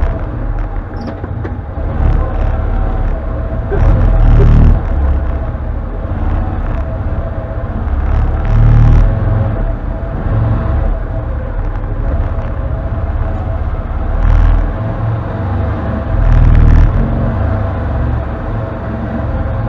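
Can-Am Defender HD10 side-by-side's V-twin engine running as it crawls over rough trail, heard from inside the cab. The engine note swells up several times as the throttle is applied.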